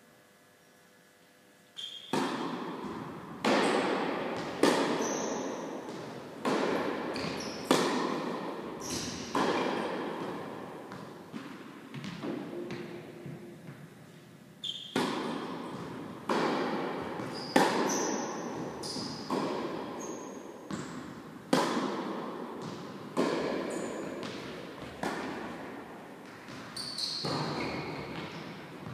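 Tennis ball being hit by rackets and bouncing on an indoor court in a rally, each hit echoing in the big hall. The hits come about one a second and start about two seconds in. They pause for a few seconds near the middle, and a second rally then begins.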